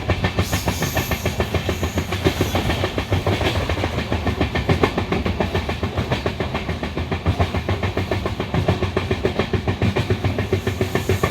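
Passenger train running at speed, its wheels clattering over the rail joints in a rapid, even clickety-clack over a low rumble.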